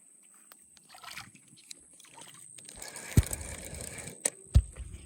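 Handling noise on a hand-held phone: quiet ticks, then rustling with two sharp dull thumps and a click between them about three to four and a half seconds in.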